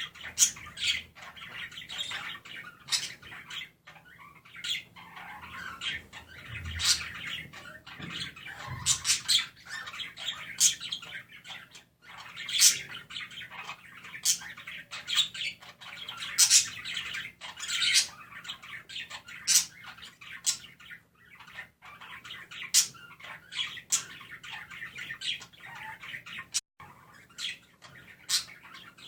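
Budgies chirping and singing very loud: continuous warbling chatter broken by many sharp, high chirps.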